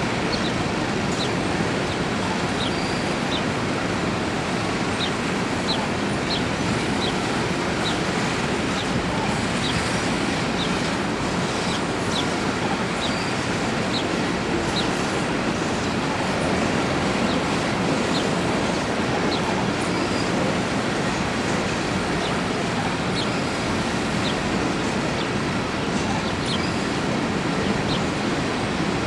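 Empty coal hopper cars rolling past on the rails: a steady rolling noise of steel wheels on track, with short high wheel squeaks about one or two a second.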